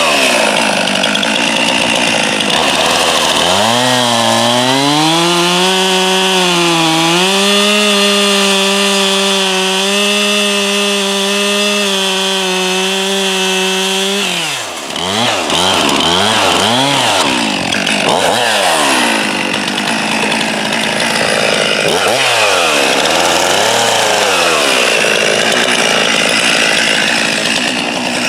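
A two-stroke STIHL chainsaw, fitted with a fairly new chain, bucking a log. It revs up and down, then holds full throttle through a long cut of about ten seconds, dipping in pitch briefly under load. About fourteen seconds in it drops off, and the rest is a run of shorter rev-ups and let-offs.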